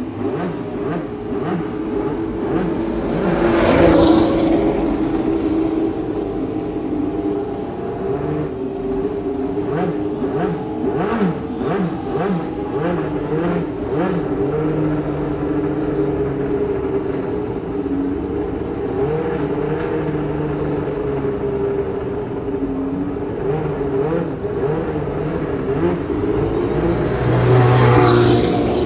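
Classic Formula One race engines running in the pit lane, blipping the throttle over and over, with one car passing loudly about four seconds in. Near the end a Walter Wolf Racing car with a Ford Cosworth DFV V8 passes close at pit-lane speed.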